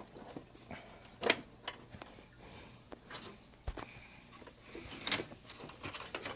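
Power supply cables and plastic connectors being handled and pushed around inside a desktop computer case: scattered small clicks, knocks and rustles, with a sharper click about a second in and a dull knock near the middle.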